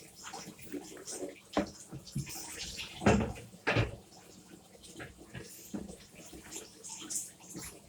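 Shower water spraying and splashing in a bathtub over plastic vacuum cleaner parts as they are washed, uneven rather than steady, with two knocks of the parts against the tub about three seconds in.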